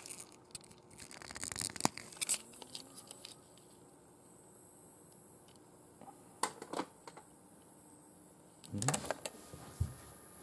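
Hard plastic parts of a model aircraft toy being handled and pulled apart by hand: a run of clicks and rattles near the start, a few sharp clicks in the middle, and a louder cluster of knocks near the end as the parts are set down.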